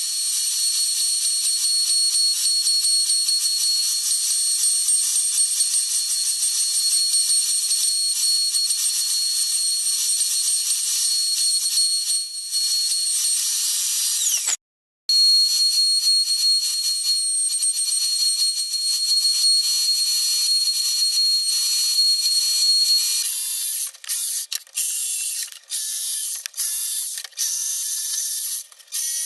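Router on a router table running at full speed and cutting wood: a steady high whine over loud hiss. It breaks off briefly about halfway, and near the end the cutting comes in short, broken stretches.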